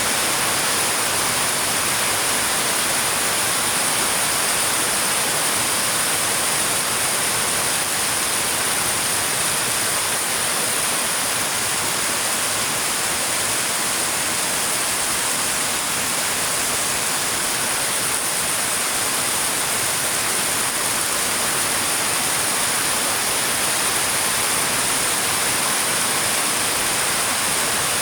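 Heavy rain falling steadily: an even, unbroken hiss with most of its energy high in pitch.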